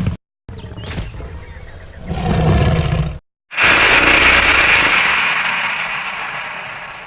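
Movie-style Carcharodontosaurus creature sound effects. A low rumbling growl swells about two seconds in and breaks off. After a moment's silence comes one long, loud roar that slowly fades away.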